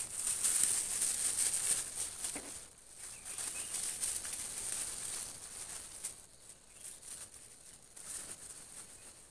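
Thin plastic bag rustling and crinkling in the hands as a snared bird is pushed into it and the bag is stuffed into a cloth sack. It is loudest for the first few seconds and grows softer and more scattered after about six seconds.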